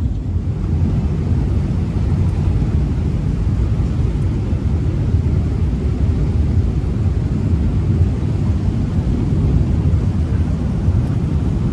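Steady low rumble of a moving river cruise boat.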